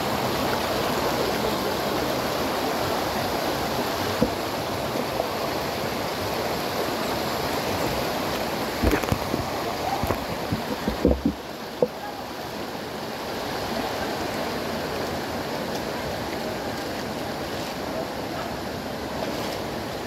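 Shallow rocky stream running over stones, a steady wash of water. A few sharp knocks and thumps come about halfway through.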